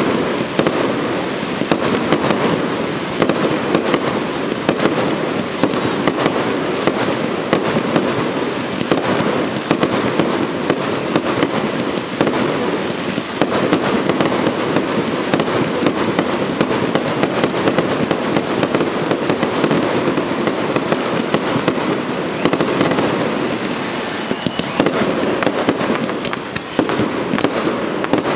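Fireworks display going off in a dense, continuous barrage: many overlapping bangs and crackles from bursting aerial shells and ground-fired comets, with no break.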